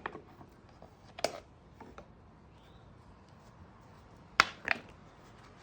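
A few sharp clicks and knocks, as of something being handled or set down, with a close pair of louder ones near the end.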